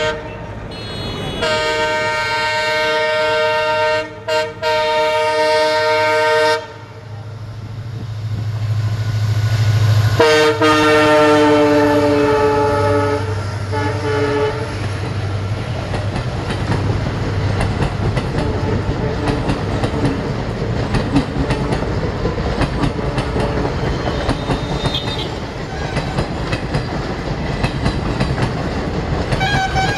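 WDP4D diesel locomotive's multi-tone air horn blowing two long blasts, the second slightly falling in pitch as it goes by, over the deep rumble of its diesel engine passing close. Then the coaches clatter past with a steady clickety-clack of wheels over rail joints.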